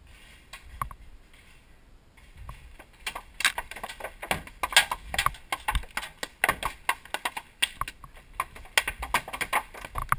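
Paintball markers firing in rapid, irregular volleys of sharp pops, starting about three seconds in and continuing steadily after that.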